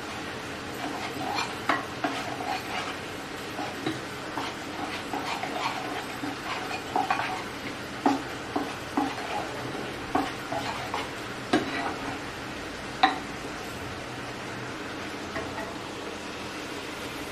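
Cooked toor dal being mashed with a steel tumbler in a pressure cooker: squelching and irregular knocks of metal on the pot, the sharpest about thirteen seconds in. A steady hiss runs underneath.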